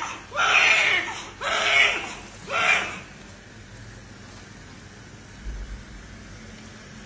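Newborn baby crying after resuscitation: three short wailing cries in the first three seconds, then the crying stops, leaving low room noise and a soft low bump near the end.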